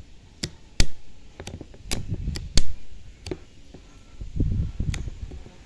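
Irregular sharp clicks and taps, about ten of them, with low rumbling handling noise, from the opened plastic combination switch and its copper contacts being handled.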